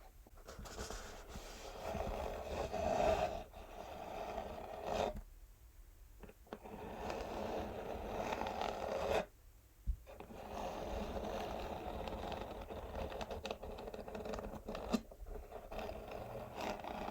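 Natural fingernails scratching an empty textured cardboard box in long strokes, with a few short breaks and an odd sharp tick.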